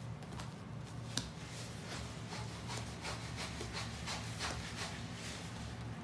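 Scattered rustles, scuffs and soft taps of a Shiba Inu grabbing and nosing a plush toy on a foam play mat, with one sharper click about a second in, over a steady low hum.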